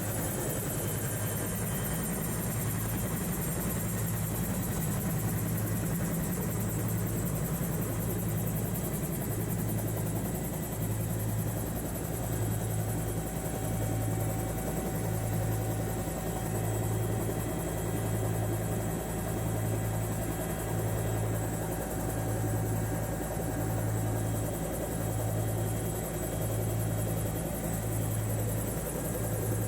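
Bell 212 helicopter heard from inside the cabin: its twin turboshaft engines and two-blade rotor running steadily, a low drone that throbs about once a second under a steady turbine whine.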